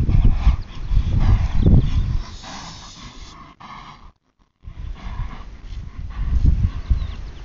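A grey Quarter Horse stallion cantering on soft arena dirt, its hoofbeats coming as dull, irregular thuds under a low rumble. The sound cuts out completely for about half a second a little after four seconds in.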